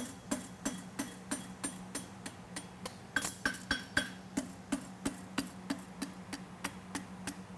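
A farrier's hammer striking a hot steel concave horseshoe on the anvil in quick, even blows, about three a second, each with a short metallic ring. These are upsetting blows driven into the corner of the shoe's branch. A steady low hum runs underneath.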